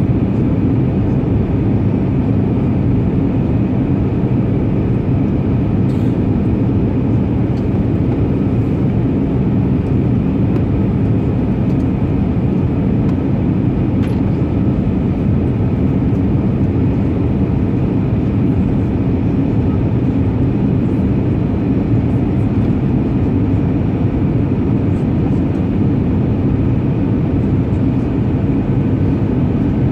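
Airbus A320 cabin noise heard from a window seat over the wing: the jet engines and rushing air make a loud, steady, low hum during the descent toward landing.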